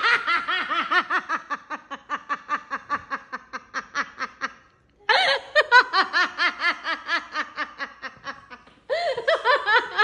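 Hearty, high-pitched laughter in rapid repeated bursts, in three long fits with short breaks for breath about five seconds in and near the end.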